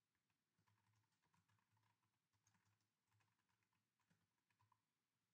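Very faint typing on a computer keyboard: a run of soft, irregular key clicks, barely above silence.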